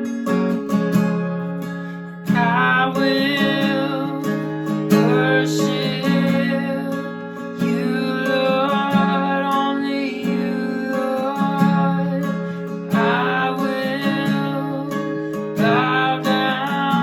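Acoustic guitar strummed in sustained chords under a singer's voice, which comes in about two seconds in: a worship song.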